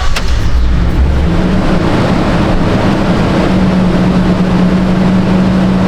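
2015 Toyota Tundra's 4.6-litre V8 catching and running: a heavy low rumble in about the first second, then a steady idle. It now starts and runs after a repair to the fuel pump connector, which had left it cranking without starting for lack of fuel pressure.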